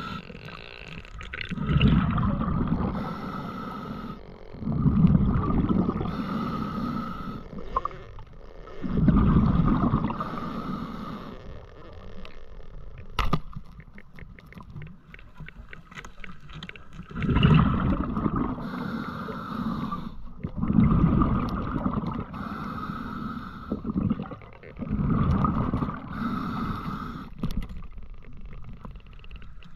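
A diver's breathing heard underwater: six long bubbling breaths about every three to four seconds, with a pause of several seconds in the middle during which a few sharp clicks sound.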